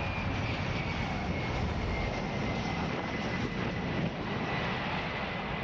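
Jet aircraft engines running steadily, a dense roar with a thin high whine that slowly drops in pitch.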